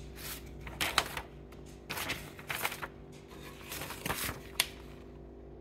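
A paper warranty card rustling and crinkling as it is handled, in a string of short crinkles over a steady low hum.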